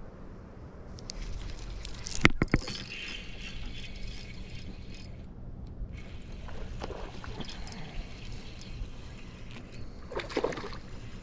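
Spinning reel being cranked as a hooked bass is fought, with a few sharp clicks about two seconds in, then a splash near the end as the fish breaks the surface.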